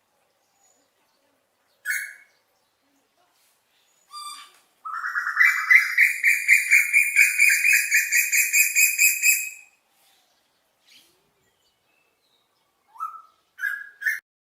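Asian koel calling. A couple of short single notes are followed by a fast run of about twenty notes lasting nearly five seconds, rising slightly in pitch, and then a few more short notes near the end.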